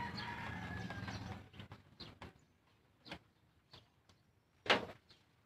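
Small hand tools worked over a CRT TV circuit board: a few short clicks and taps, then one longer scratch near the end, as of a brush stroke across the board. A low steady hum fades out during the first second and a half.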